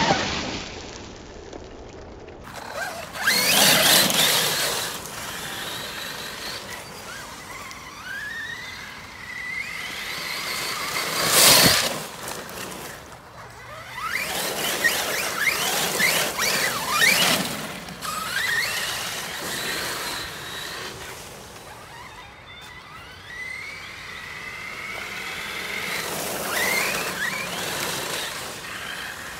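Electric motor of an Arrma Big Rock RC monster truck whining up in pitch again and again as it accelerates, over tyre noise on wet gravel. Two louder rushes of noise break in, one a few seconds in and one near the middle.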